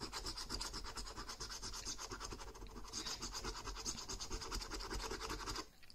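A coin scraping the silver latex coating off a paper scratchcard in rapid back-and-forth strokes, about ten a second, stopping just before the end.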